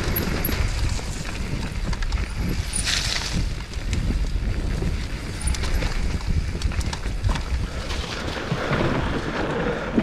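Wind buffeting the microphone at speed over the clatter of a mountain bike descending a rough, muddy downhill trail: tyres, chain and suspension rattling over ruts and bumps, with a brief louder hiss about three seconds in.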